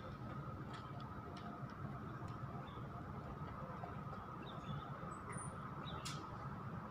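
Steady outdoor background noise: a low rumble with a constant thin hum above it, a few faint short chirps, and a brief sharp click about six seconds in.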